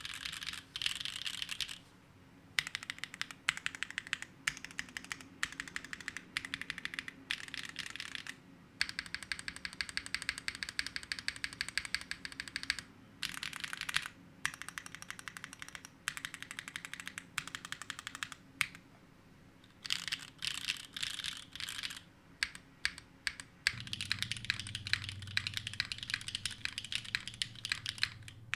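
Typing on a Neo60 Core mechanical keyboard fitted with Gateron Sage linear switches: runs of fast keystrokes in bursts of a few seconds, broken by short pauses.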